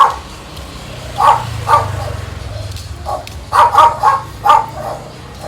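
Dog barking in short, sharp barks: two about a second apart, then a quicker run of four or five.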